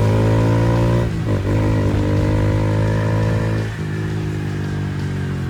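Honda Fan 160 single-cylinder engine running through an aftermarket Fortuna exhaust, with a steady, loud exhaust note. The note dips and breaks briefly about a second in and again near four seconds.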